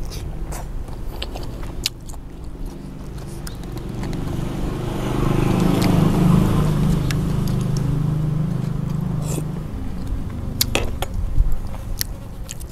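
Eating sounds: chewing and sucking river snails, with a few sharp clicks of spoon and shells. A passing motor vehicle's low rumble swells up a few seconds in and fades away again.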